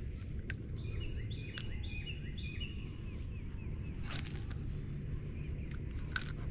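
A songbird singing a run of quick repeated down-slurred notes about a second in, over a steady low outdoor rumble, with a couple of sharp clicks and a brief hiss later on.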